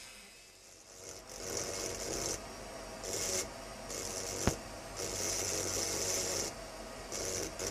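Hand-held engraving drill's burr grinding into an optical crystal glass bottle in short strokes: a hissing scratch that comes and goes about six times, the longest stroke lasting about a second and a half, with one sharp click about halfway through.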